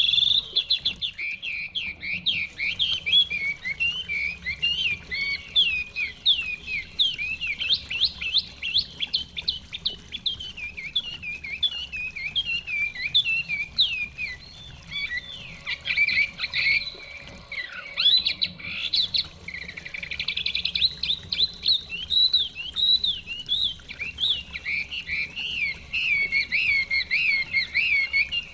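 Chinese hwamei singing a long, loud, unbroken run of rapid, varied whistled phrases that sweep up and down.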